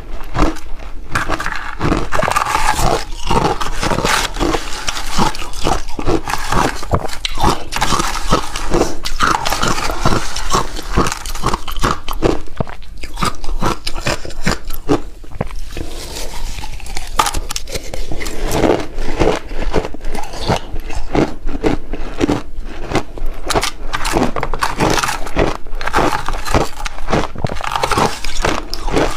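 Close-up crunching and chewing of chunks of refrozen shaved ice, a dense run of sharp crunches with a short easing about halfway through.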